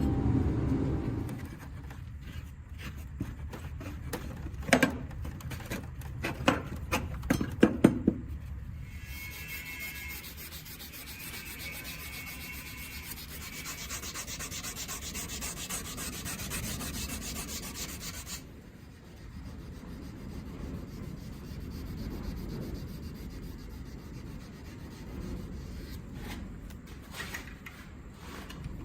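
Steel being worked by abrasion, a steady rubbing, rasping scrape. A low rumble fades out in the first second or two, scattered sharp taps come between about two and eight seconds in, and from about nine to eighteen seconds the scrape turns brighter and hissier before settling back to a quieter rub.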